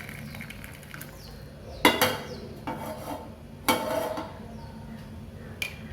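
A spoon clinking three times against a cup, about two seconds apart, while stirring the hot water into the mixture.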